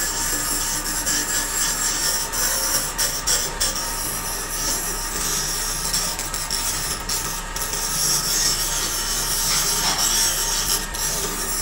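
Grinder grinding rust off the steel shaft of an electric motor rotor, a steady abrasive grinding of metal on metal.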